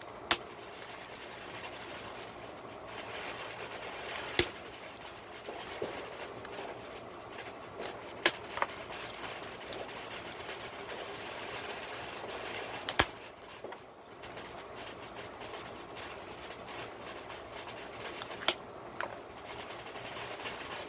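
Pressure flaking a cherry quartz slab: about five sharp clicks, several seconds apart, as flakes snap off the edge under a hand-held pressure flaker. A steady low hiss runs underneath.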